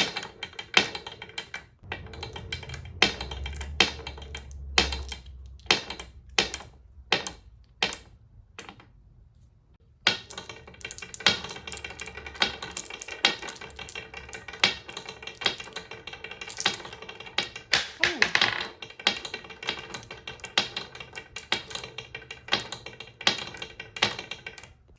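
Glass marbles clicking and clattering down a wooden slider marble run, with rapid irregular taps throughout. The clatter pauses for about a second and a half around nine seconds in, then starts again.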